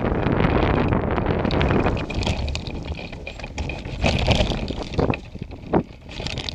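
Wind buffeting the microphone of a camera mounted on a hang glider, loud at first and dying away over the first couple of seconds as the glider slows to land. It is followed by a few short thumps and rustles.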